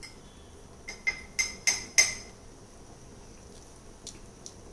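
Metal spoon clinking against a metal cooking pot: about five quick ringing clinks in just over a second, then two fainter ones.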